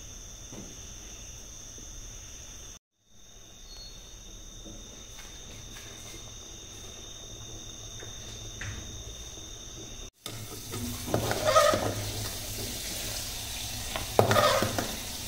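Soaked raw rice boiling in water in an aluminium pot, bubbling quietly at first. From about ten seconds in it gets louder and busier as a steel ladle stirs through the pot.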